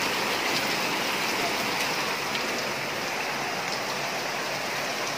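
Heavy rain falling steadily onto floodwater, an even, unbroken hiss.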